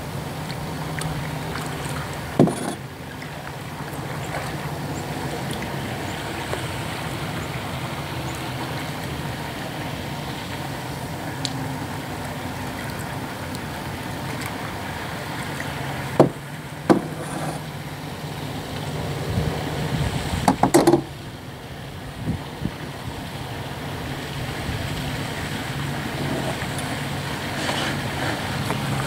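Double-bladed paddle working a plastic canoe, with sharp knocks of the paddle against the hull about two seconds in and several more in the second half, over a steady low engine hum.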